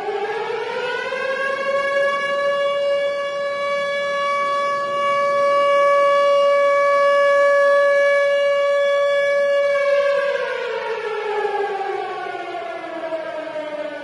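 Air raid / tornado warning siren wailing: its tone rises for the first second or so, holds a steady pitch for about eight seconds, then slowly falls away over the last four seconds.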